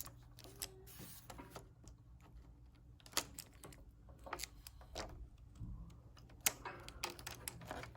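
Faint, irregular clicks and taps of a VGA cable's metal plug being handled and fitted into a laptop's VGA port, with a couple of sharper clicks about three seconds in and near the end.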